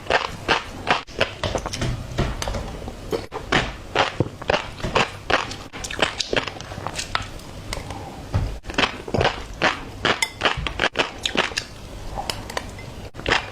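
Close-miked eating of fish roe: rapid irregular crackling and popping of chewing and bites, several a second, with a few abrupt breaks.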